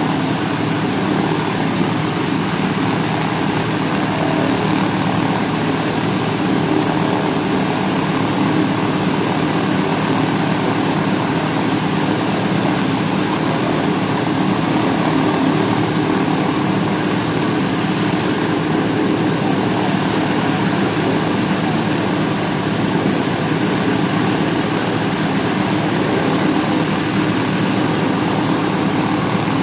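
Douglas DC-3 Dakota's Pratt & Whitney R-1830 twin-row radial engines running steadily at a ground run. The propellers turn at an even, unchanging engine speed.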